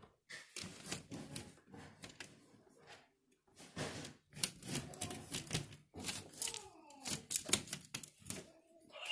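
Plastic LEGO bricks and track pieces clicking and clattering as they are handled, in quick irregular runs of clicks with short pauses.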